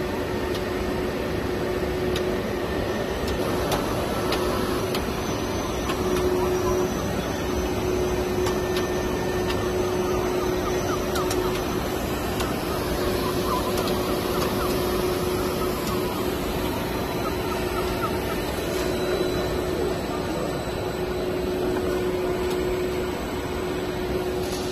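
HDPE double-wall corrugated pipe extrusion line running: a steady machine drone with a constant mid-pitched hum and a few light ticks.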